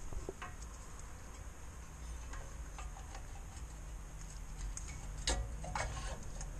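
Light metallic clicks and scrapes of a spring hook tool working the return spring off a van's rear parking brake shoe. There is a sharper click about five seconds in.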